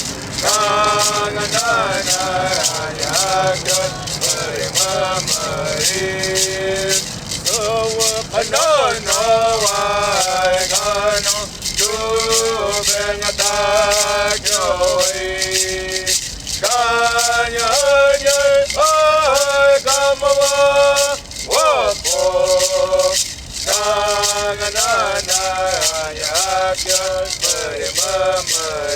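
A singer's voice carrying a song in long held and bending notes, over a hand rattle shaken in a steady, even beat.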